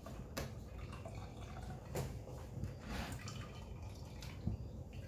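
Blended vegetable juice squeezed through a cotton nut milk bag, dripping and trickling into a glass pitcher, with a few sharper splashes.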